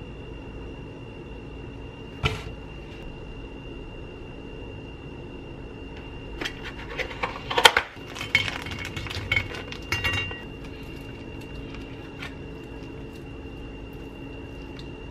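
Plastic cracker wrapper crinkling, with crackers and a knife lightly clinking on a plate; one sharp click about two seconds in, and the busiest handling about halfway through, over a faint steady hum.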